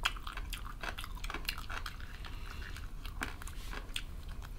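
Close-up eating sounds of crispy fried chicken being bitten and chewed: a run of small crunchy clicks and crackles, with a sharper click at the very start.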